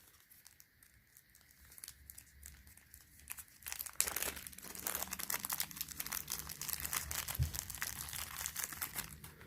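Small plastic baggies crinkling as they are handled: a few faint rustles at first, then steady crinkling from about four seconds in.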